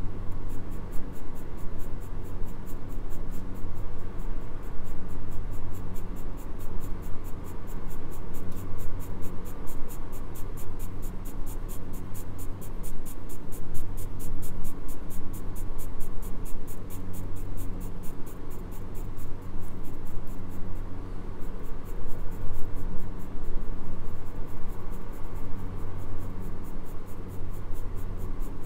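Graphite pencil scratching on paper in repeated back-and-forth shading strokes.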